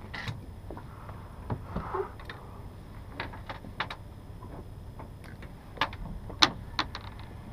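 Scattered light clicks and knocks of fishing gear being handled aboard a small boat, over a low steady rumble. The sharpest knocks fall a little past the middle.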